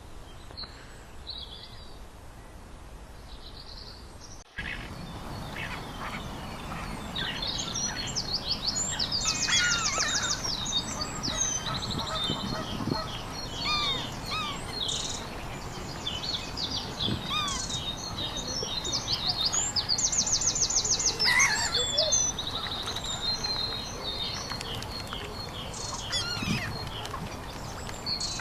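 Several birds calling and singing, with many short high calls and fast trills overlapping. The first few seconds hold only a few faint calls, then about four and a half seconds in the sound changes abruptly to a busy chorus.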